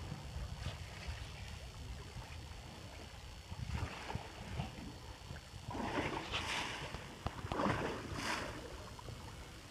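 Sea water splashing and slapping against a fishing boat's hull over a steady low wind rumble on the microphone, with louder splashes about six and eight seconds in.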